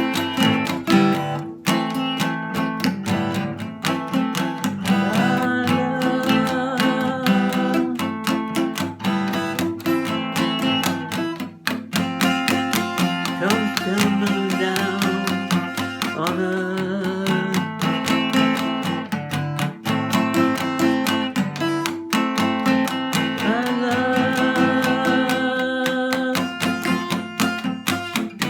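Music: an acoustic guitar strummed in a steady rhythm.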